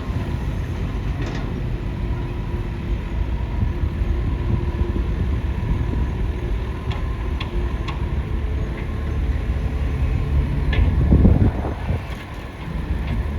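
Excavator running steadily: a low mechanical rumble with a faint steady whine and a few sharp clicks, swelling louder briefly about eleven seconds in.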